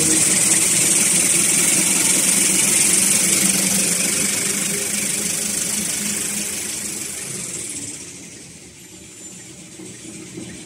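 Toilet paper and kitchen towel lamination machine running: a steady high hiss over a low mechanical hum from the rollers and moving paper web, growing clearly quieter about seven seconds in.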